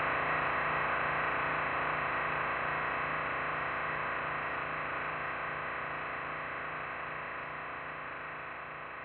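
Dense electronic sound from a MaxMSP patch sonifying a live video feed of a painting: a hissing wash of noise over a regularly pulsing low hum, fading out steadily.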